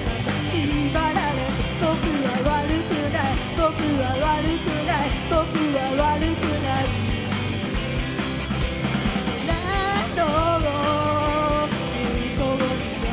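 Live rock band playing, loud and steady, with a lead vocalist singing over guitar, bass and drums; about ten seconds in the singer holds a long note.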